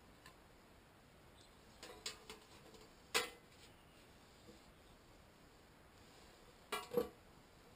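Wire racks and fillets being set into a small metal hot-smoker box: a few light metallic clinks and taps, with one sharp clink about three seconds in and a quick pair of clanks near the end.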